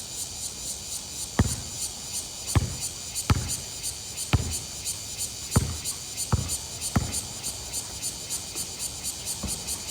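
Basketball bouncing on a court: about eight separate thuds at uneven spacing, with a steady high pulsing hiss behind them.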